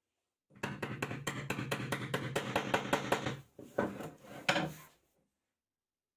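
Hammer tapping a socket to drive a 6201 ball bearing into the bore of a laminated wooden grinder wheel: rapid light taps, about seven a second, for about three seconds, then a few heavier separate blows before stopping.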